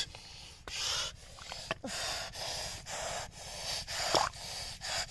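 Hands digging and scooping through wet mud and weeds, a rhythmic rustling and squelching about twice a second, with a couple of brief squeaky tones.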